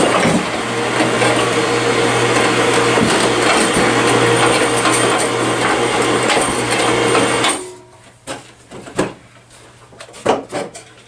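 Electric winch running steadily with a hum as it winds in cable and hauls a wooden skid ramp up a staircase. It cuts off suddenly about seven and a half seconds in, followed by a few light knocks.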